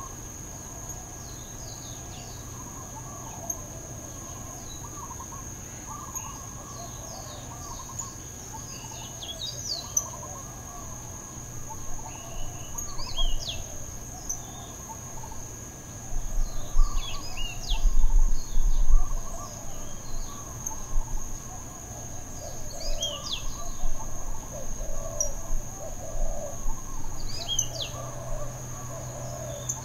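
Birds chirping and calling, with short falling chirps every few seconds, over a steady high-pitched insect drone. A low rumble comes in around the middle.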